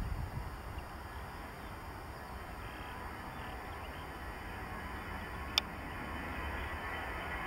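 Airbus A319 jet engines at takeoff thrust, a steady rumble and hiss that slowly grows louder as the airliner rolls down the runway and rotates. A single sharp click about five and a half seconds in.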